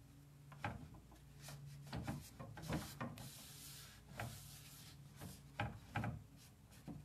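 Cloth rag rubbing over a painted, dark-waxed wooden drawer front, wiping back the excess wax in short, irregular strokes.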